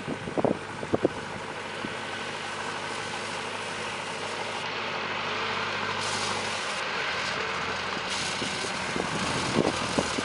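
Tractor engine running steadily as it pulls a hay rake down a windrow, growing slightly louder toward the middle. A few sharp knocks come about half a second and a second in, and again near the end.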